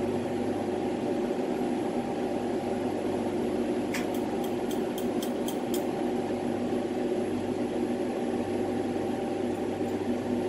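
Steady rush of a lampworking bench torch flame, with a low machine hum beneath it. A few light clicks come about four to six seconds in.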